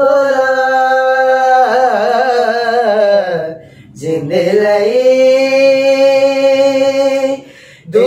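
Two men singing a Punjabi song a cappella in long drawn-out notes with a wavering vibrato. The line breaks off about three and a half seconds in, rises into a second long held note, and pauses briefly near the end.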